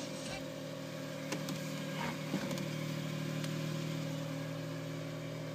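Smart Roadster's 698 cc turbocharged three-cylinder engine running at a steady speed, heard from inside the cabin, with a few light clicks in the first couple of seconds.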